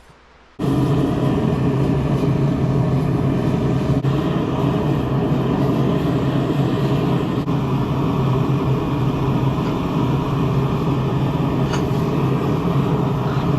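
Forge running: a loud, steady rushing noise with a low hum that starts abruptly about half a second in. The blade is being heated for normalizing.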